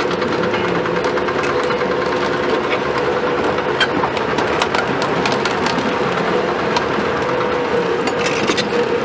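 Cat 352F XE excavator travelling on its steel crawler tracks, its Cat C13 diesel running under load with a steady whine, while the track links clank and click continuously.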